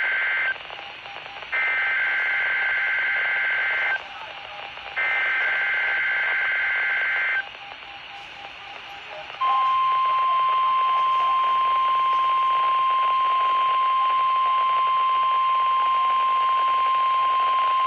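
NOAA Weather Radio emergency alert test: the end of one burst of the warbling two-tone SAME digital header, then two more identical bursts about a second apart. After a pause of about two seconds, the steady 1050 Hz warning alarm tone comes on about nine and a half seconds in, over radio hiss.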